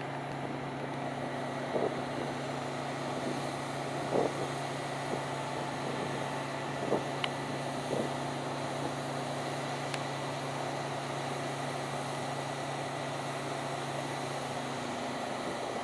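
Diesel farm harvesting machinery running steadily at a constant engine speed with a steady whine, with a few short knocks and rattles.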